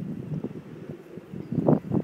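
Wind gusting over the microphone, with a plastic bag snagged on barbed wire flapping in it in irregular flutters, a louder gust near the end.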